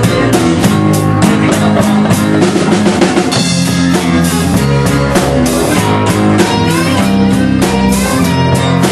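A band playing live and loud: electric guitar over a drum kit, with steady drum strikes and held low notes.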